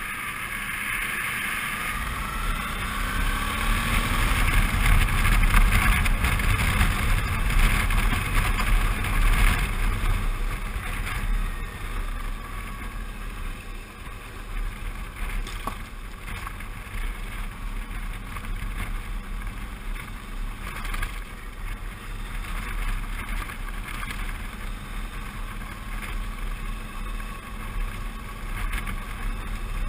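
Suzuki V-Strom 650's V-twin engine running under way, with wind buffeting the camera microphone. The engine note rises as the bike accelerates over the first few seconds, then settles into a steady cruise.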